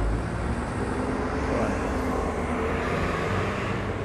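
City street traffic noise: a passing vehicle swells from about a second and a half in and fades near the end, over a steady low rumble.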